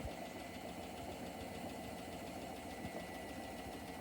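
Hotpoint WMFUG942 washing machine running with its drum turning: a steady low hum and a thin high whine, with light, irregular knocking. The owner takes the wobble for an off-balance drum spider.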